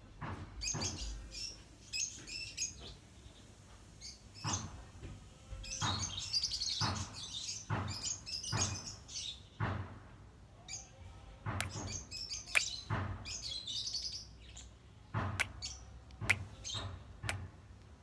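Cockatiel chirping and warbling in short clusters of high notes, with sharp clicks scattered through the second half.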